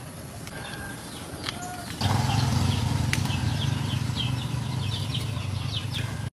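Small birds chirping in quick repeated short calls, joined about two seconds in by a steady low rumble that makes the rest of the stretch louder, with one sharp click a little after three seconds.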